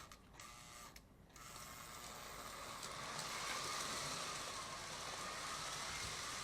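Lionel O gauge steam locomotive running on the track, its electric motor and wheels making a steady mechanical whir that grows louder over the first few seconds as it picks up speed.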